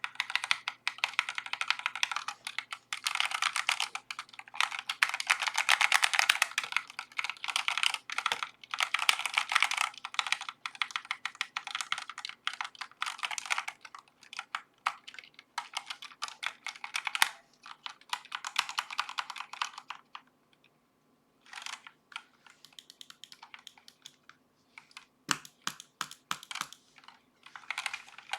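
Typing on a Redragon K552 mechanical keyboard, picked up by a webcam microphone: fast, dense key clacks for about twenty seconds, then sparser, shorter runs of keystrokes with brief pauses.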